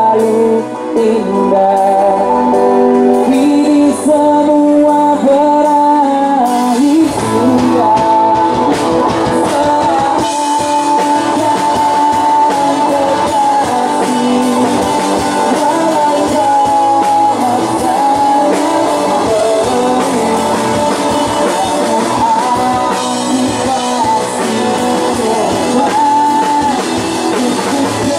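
Live rock band playing: electric guitars, drums and keyboard, with singing over it. The opening seconds are lighter, and the full band with drums comes in about seven seconds in.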